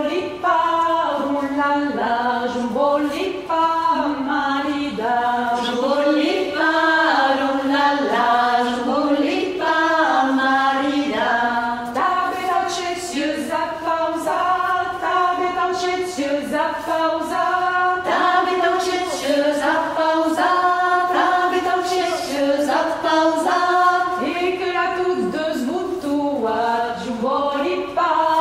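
A group of women's voices singing a traditional Gascon round-dance song (ronde) unaccompanied, in short, even sung phrases.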